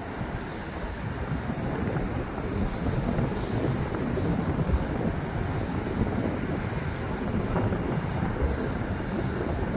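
Jet noise from McDonnell Douglas F-15C Eagle fighters, powered by twin Pratt & Whitney F100 turbofans: a deep, steady rumble that grows louder as a jet turns in on approach to land.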